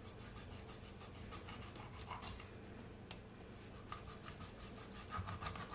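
Knife scoring a whole red snapper, the blade rasping and scraping faintly through the scaly skin with many small ticks.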